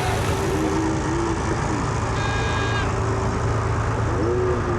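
Pulling truck's engine running at a steady idle, a low even drone. A brief high-pitched tone sounds about two seconds in.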